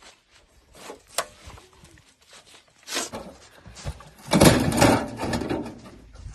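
Knocks, clicks and rustling of things being handled and unpacked, with a louder, noisy rustle about four seconds in that lasts about a second.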